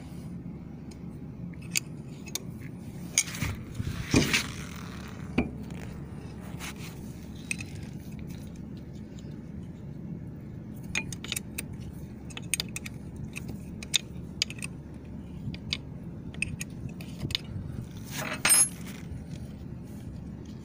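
A 10 mm wrench clicking and scraping on the steel bolts of a Yamaha outboard's water pump housing as they are loosened, with scattered metal clinks and two louder scrapes, one about four seconds in and one near the end.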